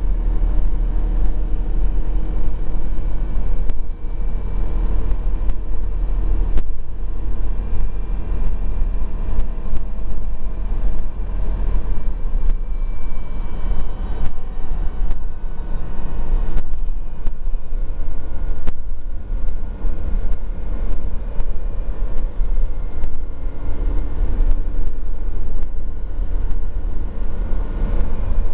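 Volvo B12BLE bus heard from inside the cabin while driving: a steady engine drone and low road rumble, with occasional short clicks and rattles.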